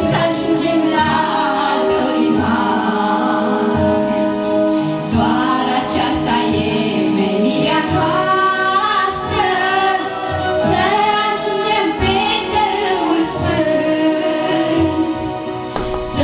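A woman and a girl singing a religious song together into microphones, over steady instrumental accompaniment.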